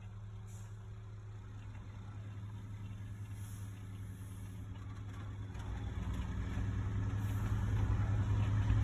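Concrete truck's engine running steadily with a low hum, growing gradually louder.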